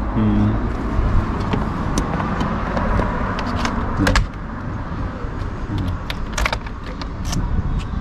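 Clicks of a camper van's cassette-toilet service hatch being shut and locked with a key, the sharpest click about four seconds in, over a steady low rumble.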